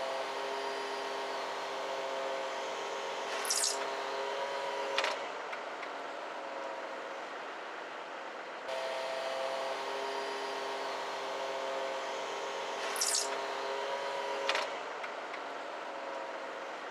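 A heavy machine's engine and hydraulics run steadily under the cab while it lifts an old excavator swing bearing ring. There is a short high squeal and then a knock, twice.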